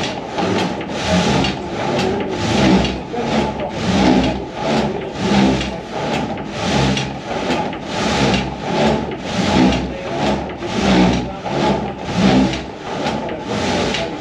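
Wind-driven multi-bladed frame saw of a Dutch wood-sawing windmill cutting a log, its blades rasping through the wood in steady strokes about twice a second, with a low knocking in time from the wooden drive.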